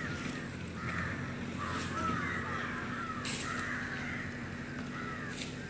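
Birds calling outdoors: a run of short, repeated calls, over a low steady background hum.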